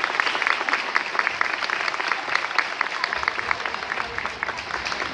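Audience applauding at the end of a children's chorus song: many hands clapping in a dense, steady patter.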